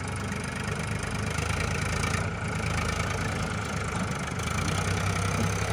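Diesel engines of a Powertrac tractor and a JCB backhoe loader running hard under heavy load, a steady drone that grows a little louder. The tractor is straining to pull a brick-loaded trolley stuck in soft sand while the backhoe pushes.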